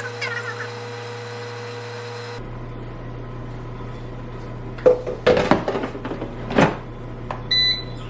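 Kitchenware being handled, with several sharp knocks and clatters over a steady low hum, then a short electronic beep from a kitchen appliance near the end.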